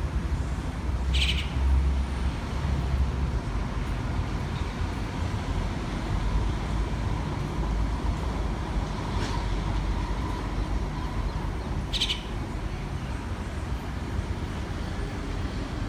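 Two short, high bird calls, one about a second in and one near the end, over a steady low rumble.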